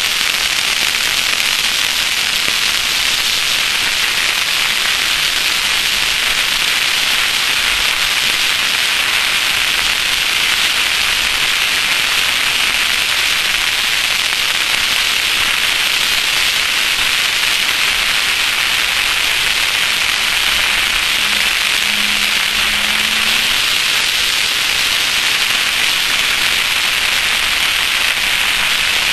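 Steady rushing wind noise with a crackling hiss, from air blowing over a camera mounted outside on the hood of a car driving an autocross course.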